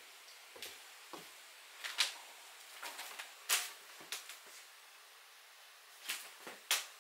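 A long wooden board being handled: a scattering of short, sharp knocks and clacks at irregular intervals as it is carried, tilted and bumped, the loudest about two seconds in, mid-way and near the end.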